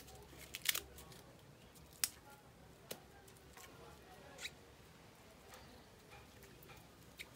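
Corn husks being pulled and torn off an ear of corn by hand: faint rustling broken by a few sharp snaps and crackles.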